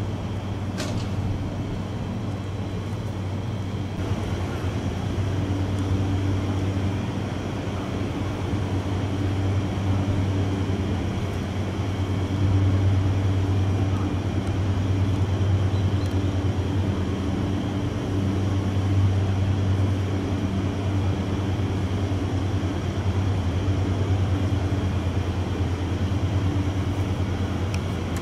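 JR 205 series electric train's steady low electrical hum over a constant rushing noise.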